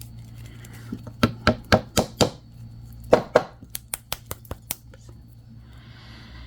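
A run of sharp clicks and clacks from hard objects being handled on a work surface. Several loud ones come a bit after a second in and again around three seconds, followed by lighter ticks.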